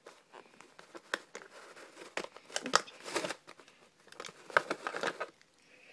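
Clear plastic blister tray of a toy package crinkling and crackling as it is handled and the figures are pulled out, in irregular bursts of crackles and clicks.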